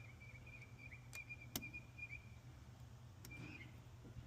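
Faint, sparse clicks of a lock pick and tension tool working the pin tumblers of a door knob lock, three small ticks with the sharpest about one and a half seconds in, while the locksmith is still setting pins in a false set. A faint high steady whistle-like tone runs through the first half.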